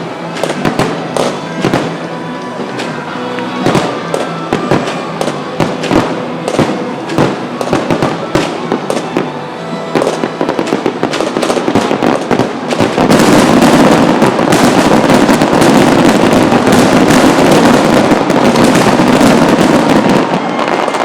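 Fireworks going off with music playing: many separate bangs and crackles at first, then from about thirteen seconds in a dense, continuous, louder barrage of bursts.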